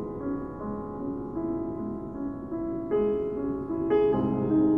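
Piano music from the film's score: a slow line of held notes, with two louder, brighter chords struck about three and four seconds in.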